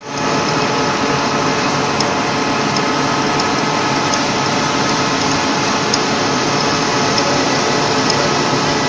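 Metal-turning lathe running under power, spinning a large steel workpiece while the tool is fed in by hand. It makes a steady mechanical drone with a light gear whine, and a faint tick repeats about every two-thirds of a second.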